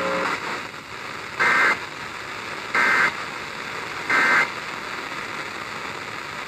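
Three short electronic alert beeps of the same pitch, about a second and a half apart, over a steady hiss: a broadcast severe-weather alert tone signalling a new warning.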